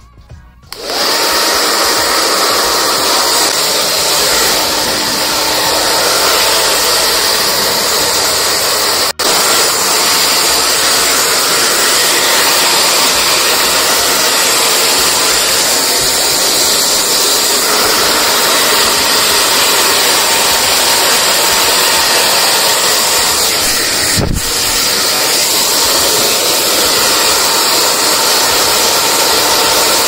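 V&G Professional 0811 handheld hair dryer switched on about a second in, then running steadily: a loud, even rush of fan air with a faint steady whine.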